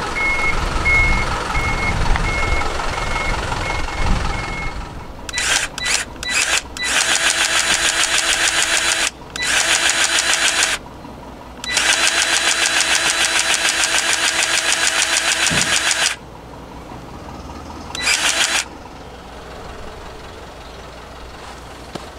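A truck's reversing beeper sounding in even beeps over its running engine, stopping about four seconds in. Then a powered grease gun runs in several bursts of up to about four seconds, pumping grease into a boat trailer's wheel bearing hub through the grease nipple.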